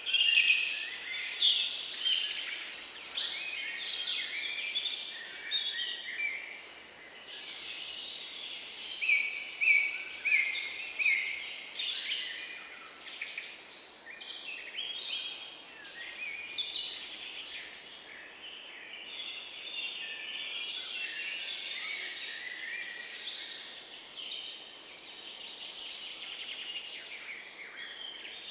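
Many small birds chirping at once in a dense chorus of short, high, overlapping chirps and trills over a faint background hiss. The chorus is busiest and loudest in the first half and thins out toward the end.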